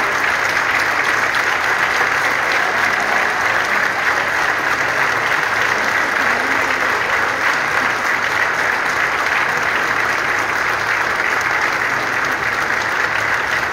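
Large crowd applauding steadily, a dense, unbroken clapping.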